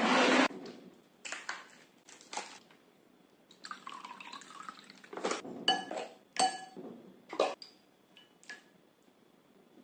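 Kitchen sounds of food being prepared. Liquid splashes and pours at the start and again about four seconds in, then a spoon or chopsticks clink and ring against glass dishes several times.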